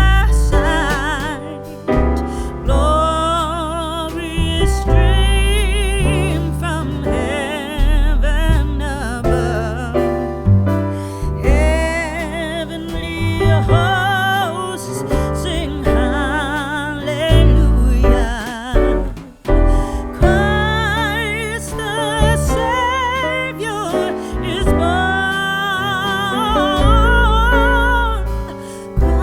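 Background music: a song with a singer's voice over piano or keyboard and a strong bass.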